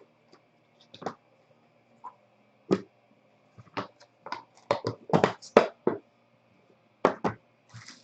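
Hands handling a trading-card box and its packaging: scattered short taps, clicks and rustles, bunched together about five seconds in.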